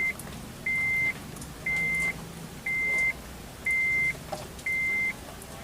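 A car's electronic warning chime beeping steadily, about once a second, six times, each beep the same single high tone lasting about half a second.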